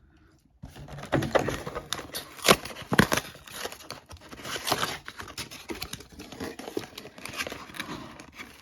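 Trading card packaging being torn open and crinkled: rustling and crackling with sharp rips, starting about half a second in, the loudest snaps about two and a half and three seconds in.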